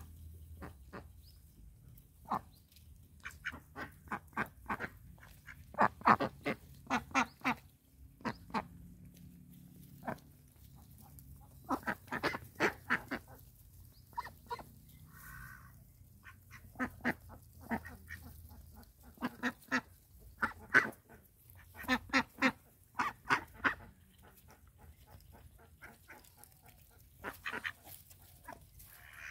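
Indian Runner ducks quacking in bursts of short, rapid quacks that come every few seconds.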